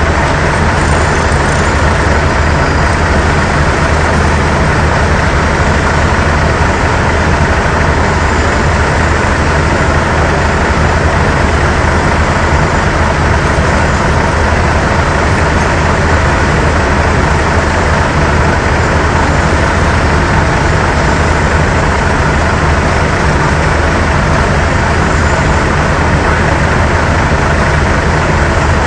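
Heavy diesel engines of truck-mounted cranes idling steadily: a constant low hum with a rough mechanical haze over it.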